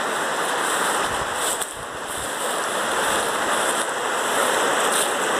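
A shallow river rushing over a cobble riffle: a steady rush of water.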